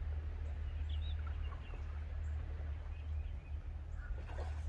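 Scattered faint bird chirps over a steady low rumble, with a louder brief call near the end.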